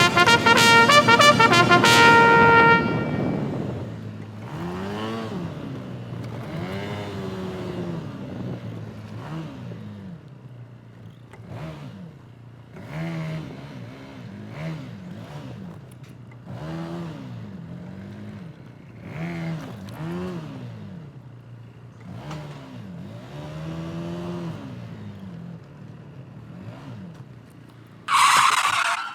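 Motorcycle engine under way, loud and high-revving at first, then rising and falling in pitch over and over as the bike speeds up and eases off. A brief loud rush of noise comes near the end.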